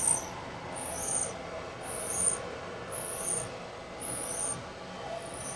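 K.O. Lee tool and cutter grinder's wheel grinding relief onto a drill bit turning in a cam relieving fixture, taking light finishing cuts. A short high hiss comes each time the wheel touches the work, about once a second, over the machine's steady hum.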